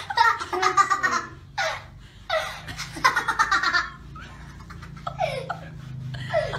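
People laughing in repeated bursts of giggles, over a steady low hum.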